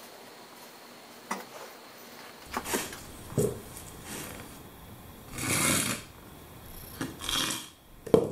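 Hand work on a tile floor: several short scrapes and rubs, the longest under a second, with a few sharp clicks and a knock near the end, typical of working thinset and setting porcelain tiles.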